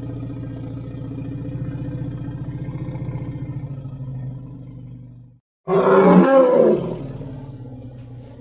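Monster sound effect for a giant creature. A long, low rumbling growl fades out, then after a moment's silence a loud roar breaks in about six seconds in and trails off into a lower growl.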